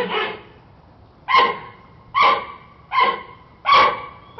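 Panda calling: a run of short, sharp-onset pitched calls, each fading quickly, repeated roughly once a second, about five in a row.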